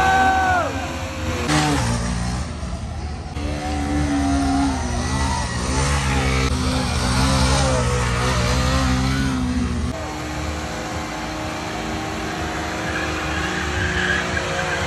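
Motorcycle engines revving, the pitch rising and falling again and again in short arcs. The sound changes abruptly about a second and a half in and again near ten seconds.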